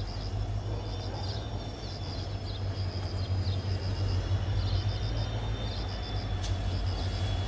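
Low engine rumble of an approaching Indian Railways diesel locomotive, growing gradually louder as the train comes closer.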